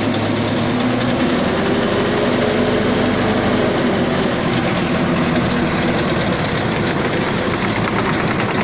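A 1963-built tank's engine running steadily and loudly, heard from on the hull, with a rough, knocking mechanical clatter. Rapid fine ticking joins in during the second half.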